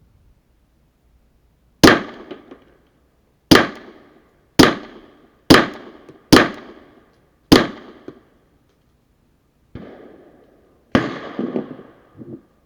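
Suppressed Glock 17 9mm pistol firing six shots at an uneven pace, each with a short echoing tail. A softer knock follows, then one more report near the end.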